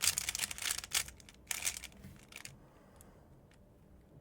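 Rapid plastic clacking of a MoYu RS3M 2020 speedcube's layers being turned quickly through an algorithm, its springs removed so the layers turn loosely; the turning stops about two and a half seconds in.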